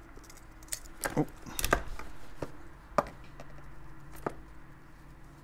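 Workbench handling noises: about half a dozen sharp clicks and taps as small plastic plug parts are set down on a cutting mat, with gloved hands handling the cable in between.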